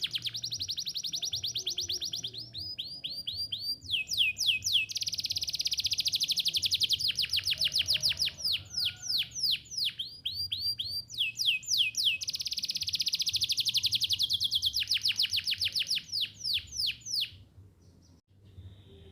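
Domestic canary singing long rolling trills: runs of very fast repeated notes, some held at one pitch and some dropping in quick sweeps, one run after another. The song breaks off about seventeen seconds in.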